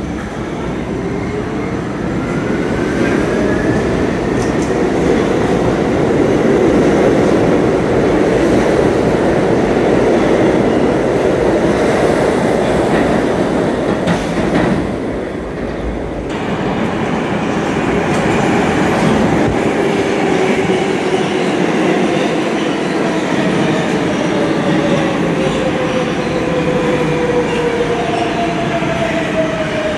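New York City subway trains on the move. A train pulls out with its motor whine rising in pitch and its wheels rumbling and clacking over the rail joints. Near the end another train comes through with its whine falling in pitch as it slows.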